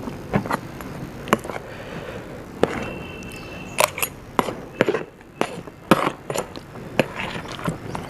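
Close-miked eating sounds: a person chewing and biting food, with irregular crisp crunches and small mouth clicks.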